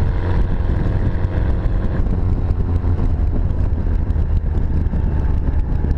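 Mini-derived 1275 cc A-series four-cylinder engine of a Mosquito three-wheeler running steadily.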